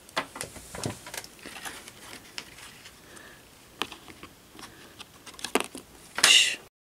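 Small clicks and taps with light rustling, the sound of plastic toy figures being handled and set down on a straw-like mat. About six seconds in there is a louder, brief rustle, then it cuts off suddenly.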